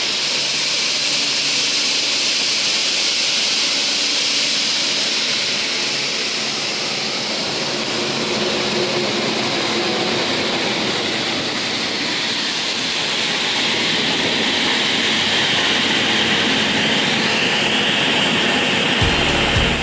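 TOS Svitavy PWR 422 double-arbor multi-rip saw running idle with no timber being fed: a loud, steady whir of its spinning saw arbors and drive motors. Music comes in right at the end.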